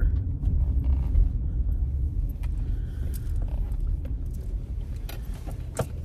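Low rumble of a car heard from inside the cabin as it pulls in to park, easing off gradually, with a few light clicks near the end.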